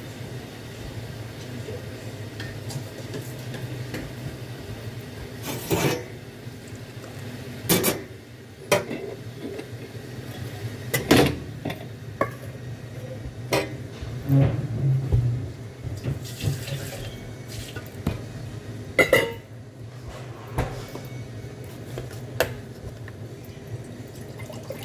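Cups and dishes clinking and knocking now and then at a café counter, with water running from a tap at times over a steady low hum.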